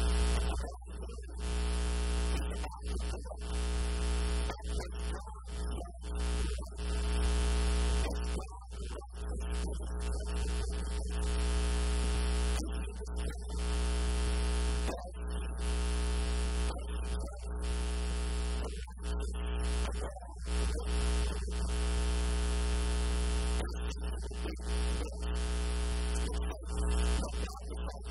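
Loud, steady electrical mains hum with a stack of overtones, buzzing through the sermon audio, with a man's voice coming and going in phrases beneath it.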